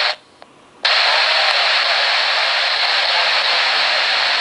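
Handheld airband scanner speakers giving a short burst of static at the start, then from about a second in a loud, steady hiss of radio static with no voice: the squelch opened by a transmission that carries no speech.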